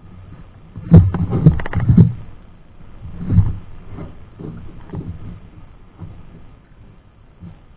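Dull knocks and a short clattering rattle from someone moving about aboard a small fishing boat: a quick cluster of knocks about a second in, one more about three and a half seconds in, then fainter ones.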